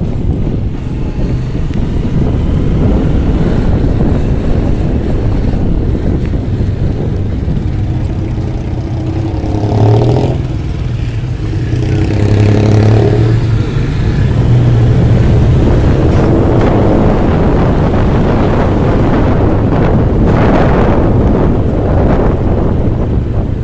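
Riding on a motorcycle: wind buffeting the microphone over a steady engine and road rumble. A louder engine note swells for a few seconds near the middle.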